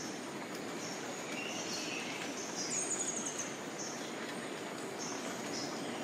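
Rainforest ambience: a steady background hiss with short high chirps recurring about once a second. A brief lower bird call comes about a second and a half in, and a rapid high trill of about eight notes, the loudest sound, comes near the middle.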